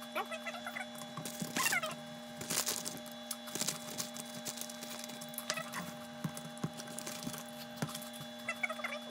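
Light clicks and knocks of an RC car's electric motor and chassis parts being handled, mixed with several short squeaky calls from an animal that rise and fall in pitch, over a faint steady hum.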